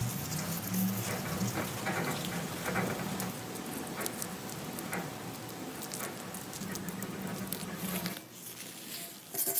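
Chemical paint stripper fizzing and crackling as old paint on a steel motorcycle frame tube blisters and lifts, a steady fine patter of tiny pops.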